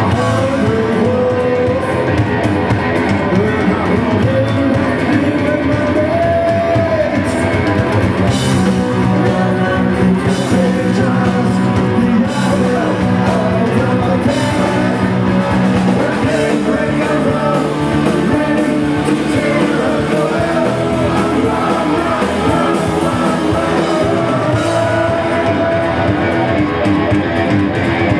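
Punk rock band playing live in a club: electric guitar, bass and drum kit with singing, loud and steady throughout.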